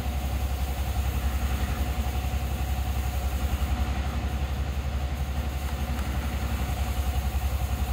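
An engine idling steadily, with an even, low throb.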